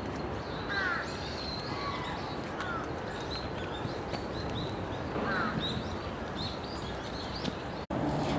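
Wild birds calling: a run of short, high chirps repeated over and over, with three lower, falling calls mixed in, over a steady outdoor background hum.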